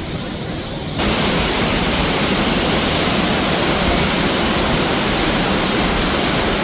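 Waterfall rushing: a steady, dense hiss of falling water. About a second in it jumps suddenly louder and fuller.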